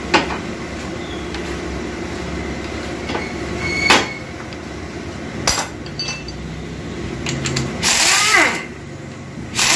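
Workshop tool sounds: scattered sharp metal clinks over a steady hum. A short hissing burst of a pneumatic tool comes about eight seconds in and again near the end, each winding down with a falling whine.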